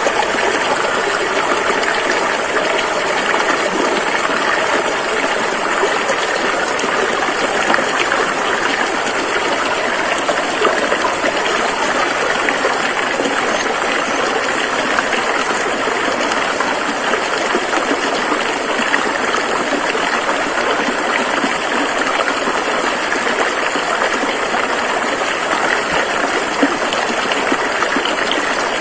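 Rushing river water flowing over rocks, a steady dense rush and splash.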